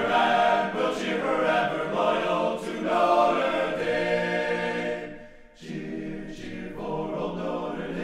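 Choir singing in long held notes, breaking off briefly about five seconds in and then going on.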